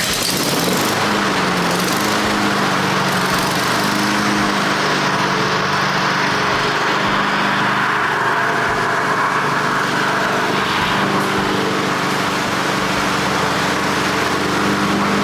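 Honda HRN walk-behind lawn mower engine running steadily just after starting. Its pitch wavers briefly about a second in, a short surge as fuel works through to the carburetor's jets, then it settles into smooth running.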